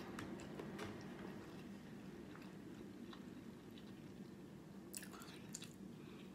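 A person chewing food close to the microphone, with soft wet mouth clicks and a brief cluster of louder clicks about five seconds in, over a low steady hum.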